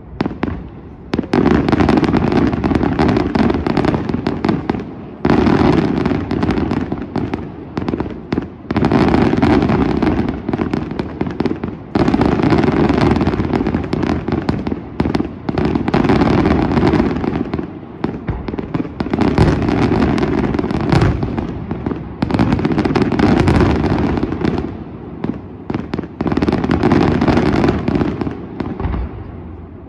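Daytime fireworks: dense, rapid crackling and banging in runs of three to four seconds, about eight runs with short breaks between them.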